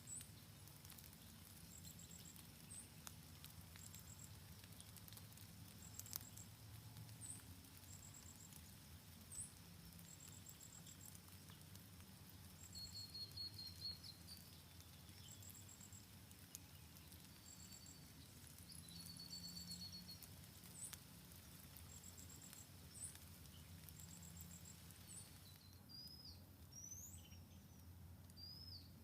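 Faint forest ambience: a short, high, pulsed call repeating about once a second, with scattered sharp clicks. A few brief high bird chirps come near the middle, and quick rising and falling bird notes come near the end.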